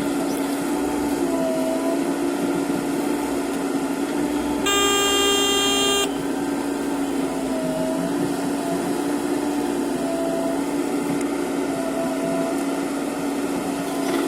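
Backhoe loader's diesel engine running steadily, with a vehicle horn sounding once for just over a second about five seconds in.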